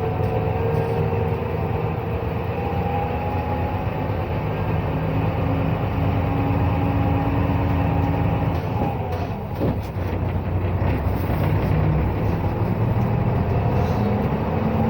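Ikarus 260 bus's Rába-MAN inline-six diesel running under way, heard from the cabin: a steady engine drone with whining tones over it, dipping briefly with a falling pitch about nine to ten seconds in.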